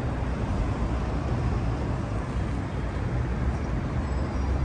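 Steady wind and road noise from a camera riding on a moving bicycle: an even, low-heavy rush with no distinct events.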